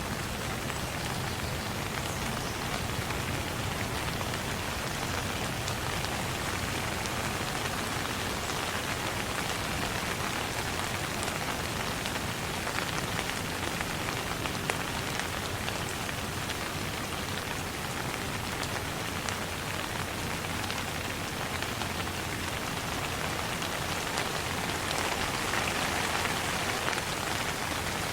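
Steady rain falling, a dense even hiss with scattered individual drops ticking through it, swelling a little heavier near the end.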